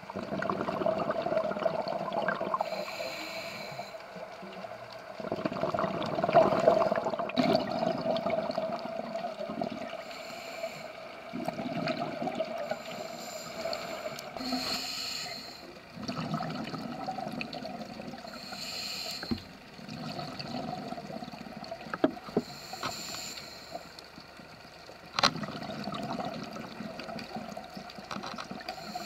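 Scuba breathing through a regulator underwater: a short hiss on each inhale, then a longer bubbling gurgle as the exhaled air escapes, repeating about every four to five seconds. A faint steady hum runs underneath, and there are two sharp clicks in the second half.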